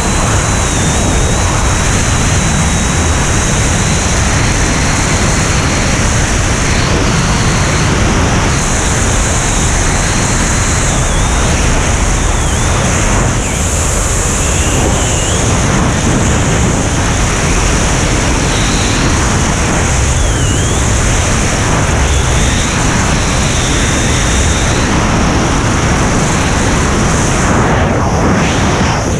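Loud, steady rush of wind on a camera microphone in skydiving freefall, with a thin high whistle that wavers and dips in pitch.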